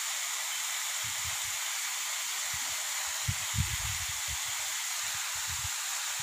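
Steady hiss of falling water from a waterfall. There are a few soft low bumps about a second in and again between three and four seconds in.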